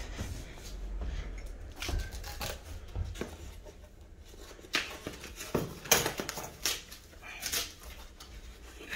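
Foam and plastic packaging wrap rustling and crackling as it is cut with scissors and pulled off a bicycle fork, in irregular sharp crackles and snips, loudest about two-thirds of the way through.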